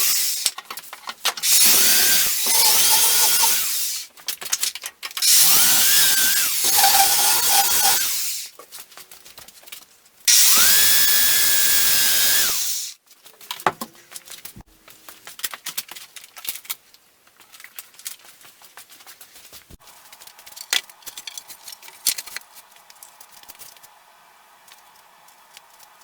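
Power drill running in three bursts of about two to three seconds each, the motor spinning up to a steady whine each time. After that, scattered light clicks and knocks.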